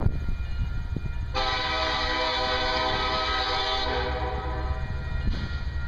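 Union Pacific freight locomotive's air horn sounding one long blast of about two and a half seconds, starting about a second and a half in, as the train approaches a grade crossing, over a steady low rumble of the train.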